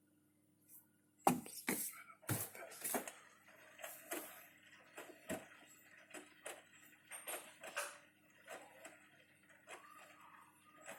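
Bosch Series 6 washing machine drum tumbling a load of wet dark clothes early in the wash, with water splashing. A run of knocks and splashes starts about a second in, loudest at first, then goes on irregularly about once or twice a second.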